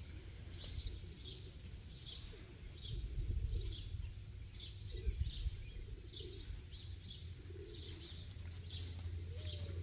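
A small bird calling outdoors: one short high chirp repeated steadily, about every half second or a little more, over a faint low rumble.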